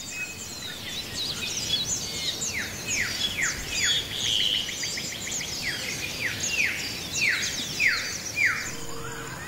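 Wild birds calling in a dense chorus of high chirps. Twice a bird gives a run of sharp, falling whistled notes, about three a second.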